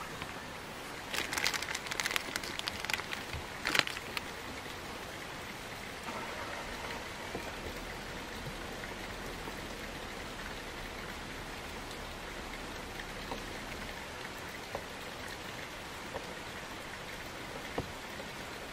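Steady rushing hiss of running water, like a nearby stream. About one to four seconds in there is a cluster of sharp clicks and rustles, and a few light ticks come later.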